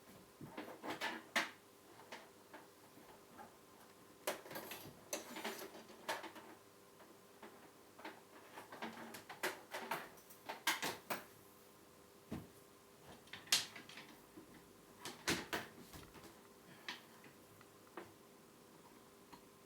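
Scattered light clicks and knocks at irregular intervals, from hands handling and plugging an antenna cable into a television.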